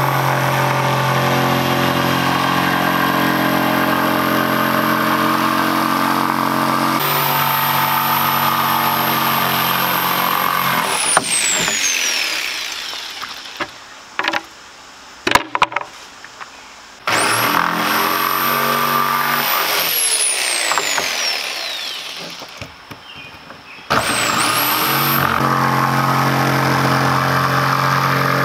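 Electric jigsaw cutting plywood. Its motor runs steadily with a high whine, winds down about eleven seconds in, and a few knocks follow. It then starts up again, runs for about three seconds and winds down, and starts a third time a few seconds before the end.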